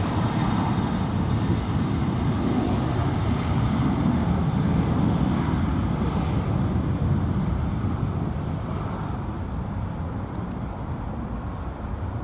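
Boeing 737-800's twin CFM56-7B turbofan engines at takeoff thrust, a steady deep jet rumble on the takeoff roll. It begins to fade a little over halfway through as the aircraft rolls away.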